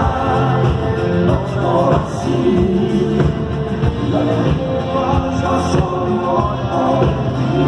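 Rock band playing a song live: drums keep a steady beat under held chords, with no clear lead vocal line.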